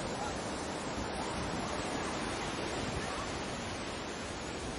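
Sea surf washing in, a steady, even rush of waves with a little wind on the microphone.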